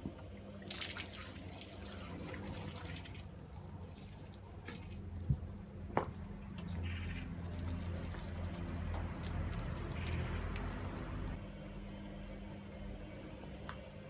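Hotpoint front-loading washing machine mid-wash: water sloshing and dripping in the drum over a steady low motor hum, with two sharp knocks about five and six seconds in.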